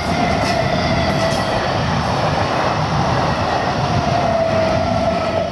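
Coaches of an Indian Railways express passenger train passing close by at speed: a steady rumble and rattle of wheels on rail, with a high whine running through it.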